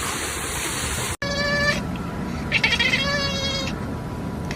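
A steady rushing hiss, which cuts off abruptly about a second in. Then an animal gives two wavering, bleat-like cries: a short one, then a longer, louder one.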